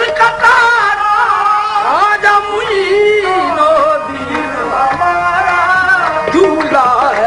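Qawwali music: a lead singer's voice glides through a melodic line over held harmonium notes, with tabla strokes underneath.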